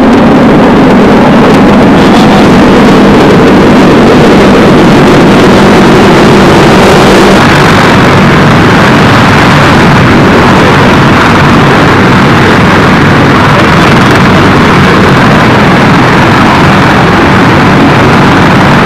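Loud, steady drone of running military aircraft engines, an even rushing noise that does not let up.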